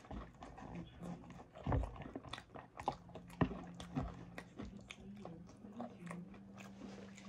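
Close-up chewing and crunching of a salad, with a fork clicking and scraping in a plastic bowl and a few louder knocks. A steady low hum runs underneath.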